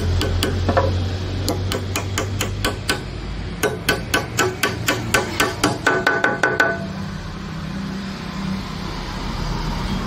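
A hammer tapping a small nail into the edge of a plywood panel with quick light blows, about four to five a second. The tapping stops about two-thirds of the way through.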